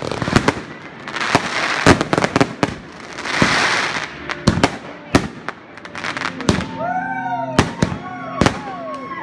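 Fireworks going off: a quick run of sharp bangs and hissing crackle, then from about six and a half seconds several whistling fireworks, each whistle rising and then falling in pitch, among more bangs.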